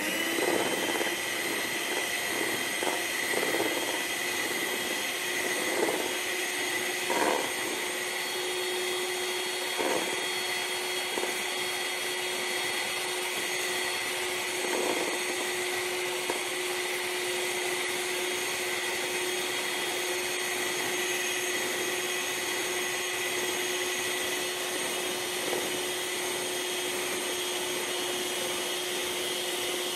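Handheld electric beater running at a steady speed, whipping cream in a bowl, with a few brief knocks in the first fifteen seconds or so.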